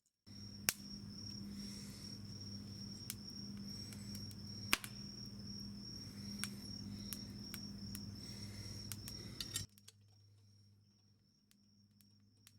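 Wood fire crackling, with sharp pops from the burning wood, over the steady high trill of crickets and a low hum. About ten seconds in, the crackling and hum cut off abruptly, leaving the cricket trill faint.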